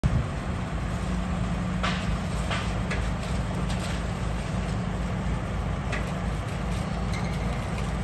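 Heavy diesel machinery engine running steadily, with several sharp metallic clanks scattered through.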